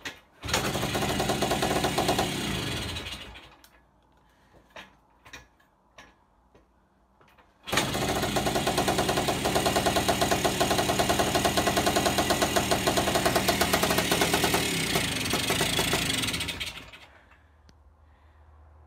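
Kawasaki F7 175cc single-cylinder two-stroke dirt bike engine runs for a couple of seconds and dies. After a few seconds of scattered clicks it catches again, runs for about nine seconds and cuts out. The running is intermittent, and the owner suspects an electrical fault such as a loose connection.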